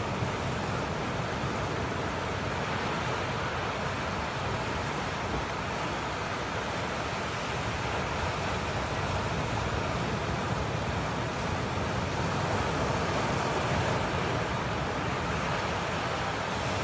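Ocean surf breaking over a rocky shoreline: a steady rushing wash that swells a little about three-quarters of the way through.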